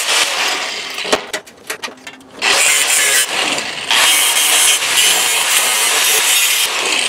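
Electric cutoff wheel cutting the sheet steel of a 1935 Ford truck firewall, loud and steady. It breaks off about a second in, with a few sharp clicks and knocks, then cuts again from about two and a half seconds in.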